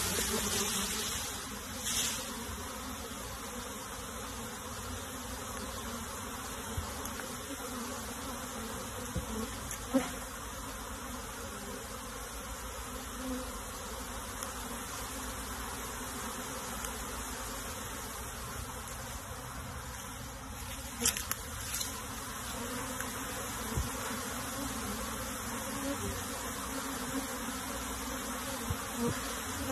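A dense mass of honey bees buzzing in a steady, continuous hum as the colony is moved into a hive box, with a few short knocks about a third and two thirds of the way through.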